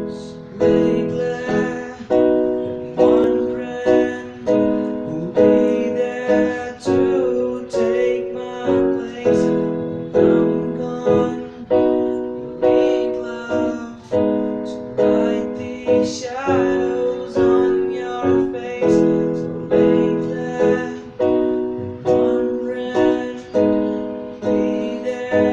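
Piano playing the song's intro as repeated chords, each struck and left to ring down before the next, about one a second.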